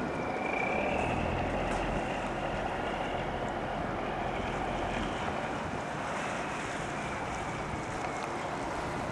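Wind buffeting the microphone over the steady noise of a harbour quayside, with a low rumble for the first few seconds.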